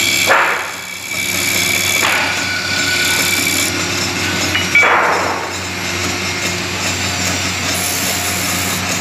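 Woodworking machine running with a steady hum. Three short, harsh bursts of cutting or tool-on-wood noise come through in the first five seconds.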